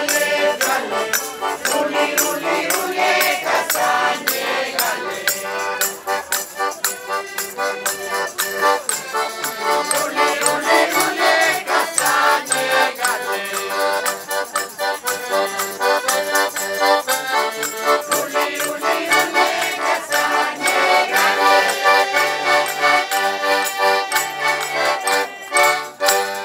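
A traditional folk tune played on a diatonic button accordion (organetto), with the metal discs of a wooden jingle stick shaken in a steady beat.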